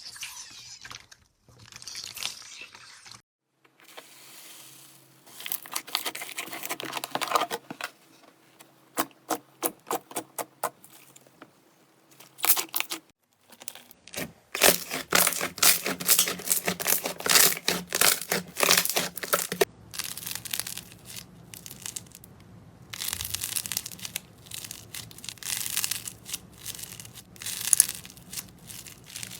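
Slime being handled: sticky crackling, tearing and popping as it is stretched, pressed and poked. It comes in several short segments, with a run of separate sharp pops in the middle and a long dense crackle after them.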